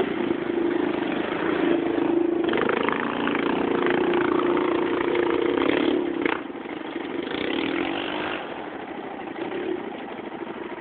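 Quad ATV engine running close by with some revving, dropping noticeably quieter about six seconds in, just after a sharp click.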